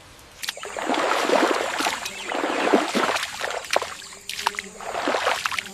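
Water splashing and sloshing in irregular surges, starting about half a second in.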